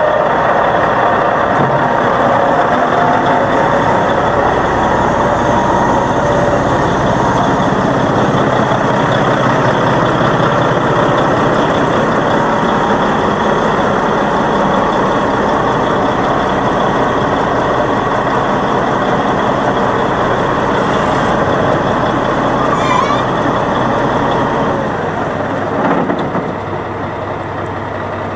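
Caterpillar 627E scraper's diesel engine running steadily, a loud continuous machine noise that drops a little in level near the end.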